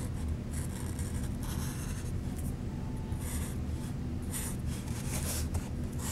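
Marker tip scratching across a paper cup in short, irregular strokes while outlining a drawing, over a steady low hum.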